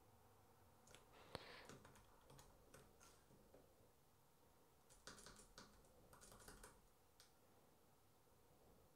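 Faint keystrokes on a computer keyboard: a run of typing about a second in, with one louder click at its start, and a second run around five seconds in.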